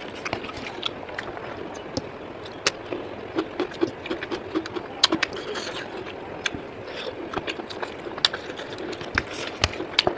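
Eating sounds close to the microphone: irregular sharp clicks and smacks of chewing boiled pork over a steady background hiss.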